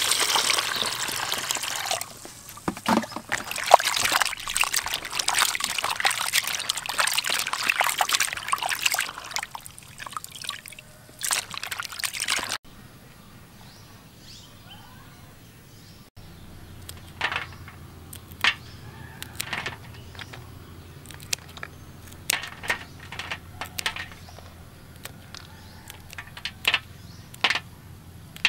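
Water pouring into a plastic basin over cut octopus pieces, splashing and trickling as they are rinsed, for about nine seconds, then breaking up into a few sloshes. Later comes a quieter stretch with a run of short, sharp scissor snips as green peppercorn clusters are cut from their stalks.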